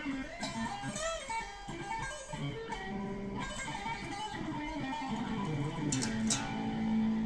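Jackson electric guitar played solo, a lead line of single picked notes moving up and down the neck, ending on a long held note near the end.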